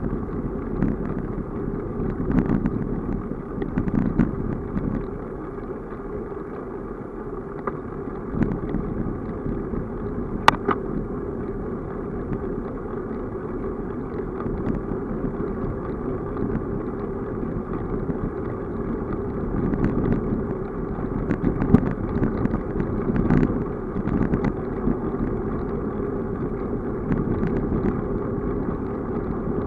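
Bicycle rolling along a rough, patched asphalt lane: steady tyre and road noise mixed with wind on the microphone, broken by irregular knocks and rattles over bumps and one sharp click about ten seconds in.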